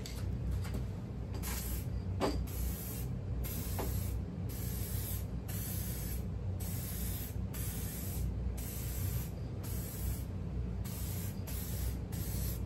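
Aerosol can of U-POL No. 9 blending solvent spraying in about a dozen short bursts, each under a second, with brief pauses between passes.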